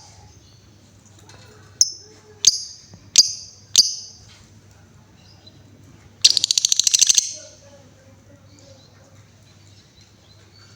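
Female lovebird calling: four sharp, high chirps about two-thirds of a second apart, then a rapid pulsed trill, the lovebird's 'ngekek', lasting about a second.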